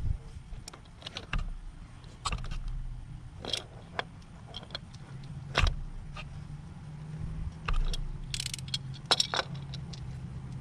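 Irregular metallic clinks and knocks of hand tools and car parts being handled during oil-change work, with a short cluster of sharper clinks near the end, over a steady low hum.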